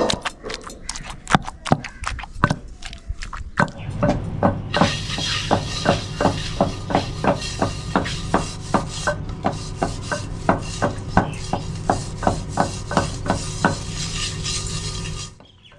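A wooden pestle knocks in a mortar, pounding roasted eggplant. Then a hand rubs wet mud over the bottom of a metal cooking pot in a rough, scraping rhythm with sharp ticks about three times a second, which stops shortly before the end.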